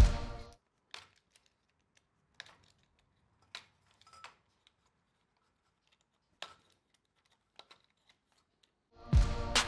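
A few faint, scattered clicks and light rattles of wiring and plastic cable-chain links being handled as a CNC router's gantry is stripped of its cables, about six small clicks with quiet between them. Background music fades out at the start and comes back near the end.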